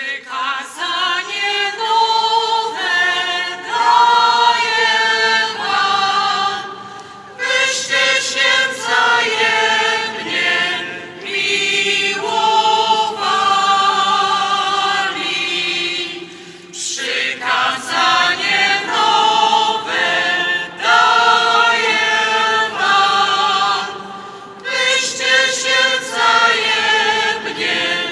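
Choir singing a liturgical hymn, unaccompanied, in phrases broken by short pauses.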